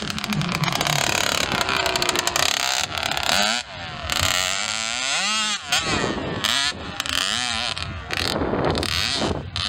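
Mini motocross bike's small two-stroke engine revving hard, its pitch rising and falling again and again with throttle and gear changes.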